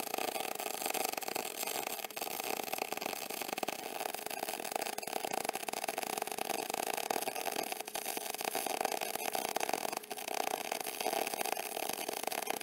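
MIG (gas metal arc) welder with .035 wire laying a fillet weld on raw steel tubing, the arc making a steady, dense crackle.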